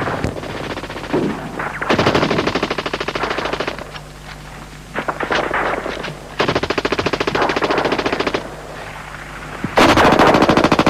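7.62 mm GPMG machine guns firing in the sustained-fire role: long bursts of rapid fire with short pauses between, and a few scattered shorter bursts in the gaps.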